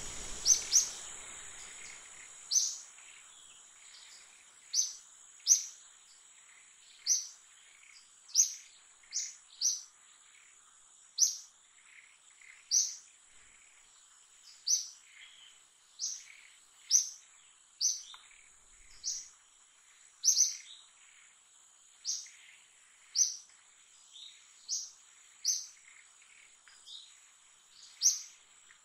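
Short, high-pitched chirps repeating irregularly about once a second over a faint, steady high whine.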